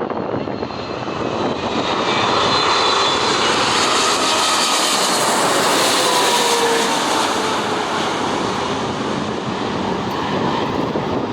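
Boeing 777 jet engines as the airliner passes close by: a loud rushing noise that builds over the first couple of seconds, with engine whines sliding down in pitch as it goes past.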